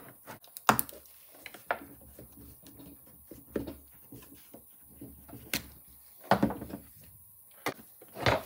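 Irregular sharp clicks and knocks of a plastic cover being worked loose from a Mercedes W202 mono-wiper linkage assembly, with a small cluster of them about six seconds in.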